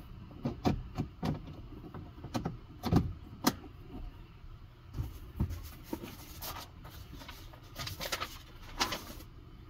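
Plastic clicks and knocks as the cabin air filter access cover behind a 2023 Kia Niro's glove box is pressed and snapped into place, with a quick run of sharp clicks in the first few seconds and softer scraping and rustling later. A low steady hum runs underneath.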